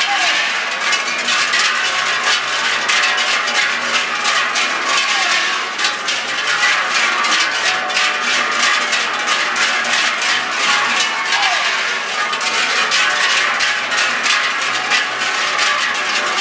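A troupe of bell ringers swinging large cowbells together, making a dense, continuous clanging that keeps a steady rhythm.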